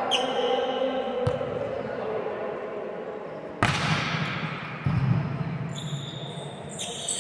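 Volleyballs being struck and bouncing on a court: three sharp smacks, the loudest about midway, over a background of players' voices.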